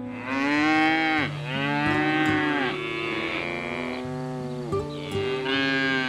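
Dairy cows mooing: several long moos one after another, each swelling up and falling away in pitch, over soft background music.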